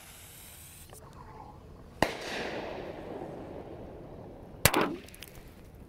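M1000 Red Devil firecracker going off in a liquid-filled plastic soda bottle: its fuse sizzles, there is a sharp crack about two seconds in followed by a fizzing hiss, and then a second bang near the end.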